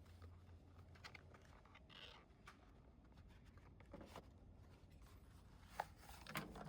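Near silence with faint handling noises: scattered small clicks and rustles, and two sharper ticks near the end.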